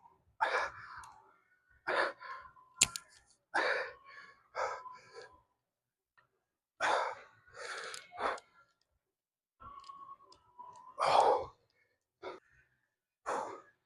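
A person breathing out hard in short, forceful exhales, about ten of them at irregular intervals, with one sharp click about three seconds in.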